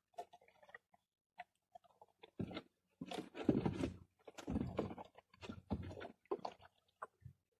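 Irregular crunching and clicking from hands preparing hermit crab bait, the busiest and loudest stretch in the middle.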